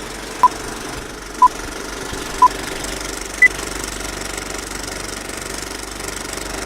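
Four electronic beeps one second apart, three at the same pitch and a fourth an octave higher, in the pattern of a race-start countdown, over a steady engine running.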